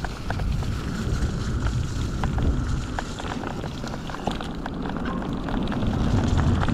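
Mountain bike riding along a trail: a steady low rumble of tyres and wind on the microphone, with many small clicks and rattles.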